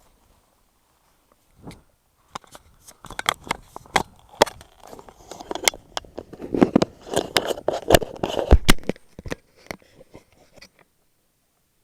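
A run of sharp clicks and knocks with scraping, rubbing noise close to the microphone, starting about two seconds in, busiest in the middle, and stopping near the end.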